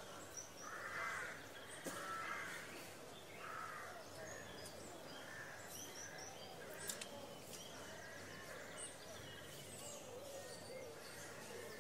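Daytime town-square ambience recording: a series of harsh bird calls, loudest in the first four seconds, over a faint murmur of distant voices and bustle.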